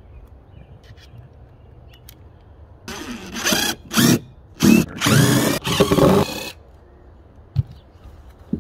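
DeWalt cordless impact driver with a square-drive bit backing screws out of the boat's carpeted gunwale trim. It runs in about five short bursts over three and a half seconds, the motor pitch bending up and down as it spins up and stops.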